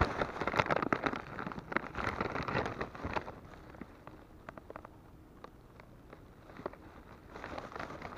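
Plastic lure packaging crinkling and rustling as it is handled. The crackling is densest in the first three seconds, drops to scattered faint crackles in the middle, and picks up again near the end.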